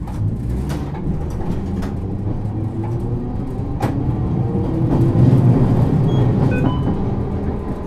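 Interior running sound of a 1950 Nippon Sharyo Series 202 resistor-controlled tram pulling away from a stop: the traction motor whine rises in pitch as it gathers speed, over a low rumble of the running gear. A few sharp clicks break through.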